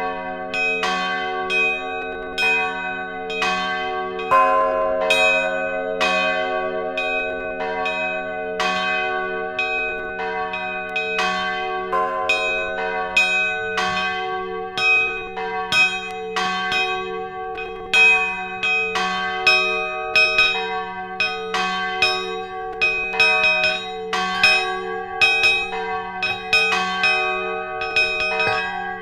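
Church bells pealing: several bells struck one after another, about one to two strokes a second, their long ringing tones overlapping into a continuous hum. One of the lower bells stops ringing about halfway through.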